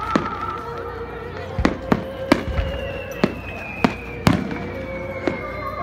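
Aerial firework shells bursting overhead: about eight sharp bangs at uneven intervals, the loudest a little past the middle. A thin whistle glides slowly down in pitch through the middle.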